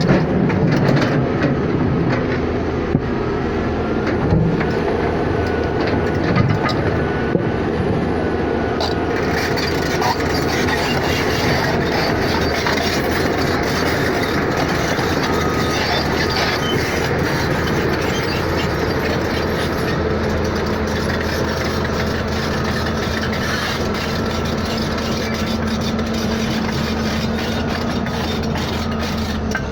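Steady running noise of a moving vehicle, with a low, even hum underneath.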